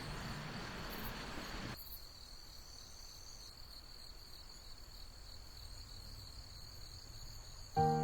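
A cricket-like insect trilling steadily on one high, thin note, faint against natural quiet, as background music fades out and returns near the end.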